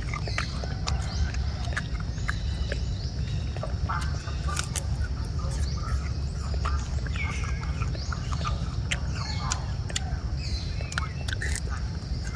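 Wild monkeys giving many short, scattered squeaks and calls, with sharp clicks between them, over a steady high hiss and a low rumble.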